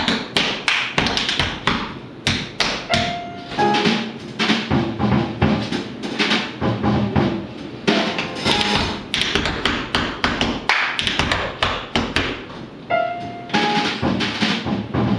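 Tap dancing: a fast, dense run of shoe taps and stomps on a wooden floor, over jazz piano and drums.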